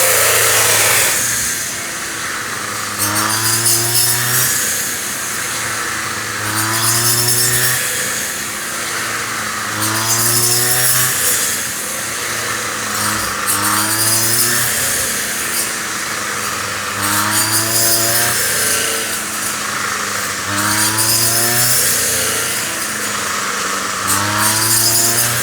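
The small motor of a mini rice threshing machine, its pitch rising and easing off in a regular cycle about every three and a half seconds.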